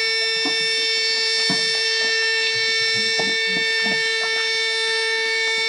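A steady, unwavering siren-like tone played over loudspeakers, holding one pitch throughout, with faint irregular knocks and thumps beneath it.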